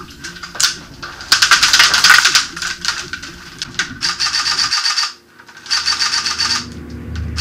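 Airsoft guns firing on full auto: a rapid rattle of clicks in several bursts, each about half a second to a second long.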